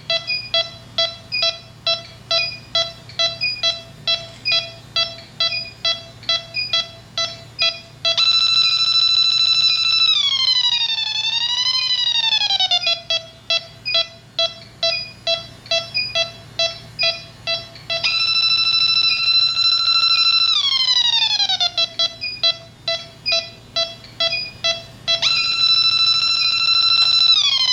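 Yellow Jacket electronic refrigerant leak detector beeping about three times a second while it searches. Three times, about 8 s, 18 s and 25 s in, it jumps to a continuous high alarm tone as it picks up R-410A leaking from the corroded coil. Each time the alarm holds for a couple of seconds, then slides down in pitch and drops back to the ticking beep.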